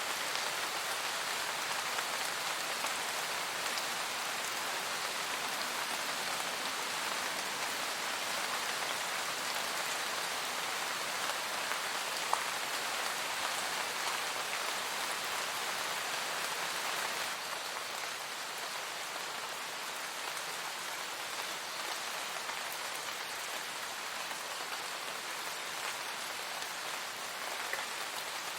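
Steady forest rain: a dense, even patter of raindrops on leaves, dropping a little in level about two-thirds of the way through.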